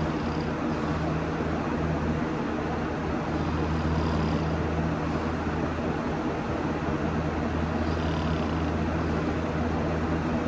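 Someone snoring in bed, slow regular breaths swelling about every four seconds over a steady low hum.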